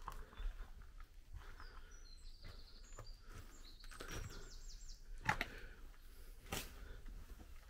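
Slow footsteps, about one step a second, with a few short bird chirps in the middle.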